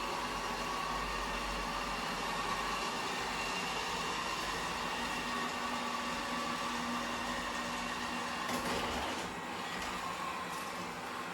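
Samsung Bespoke Jet Bot robot vacuum (VR30T85514W) running, a steady whir of its suction motor with a faint hum. A brief rattle of light clicks comes about eight and a half seconds in.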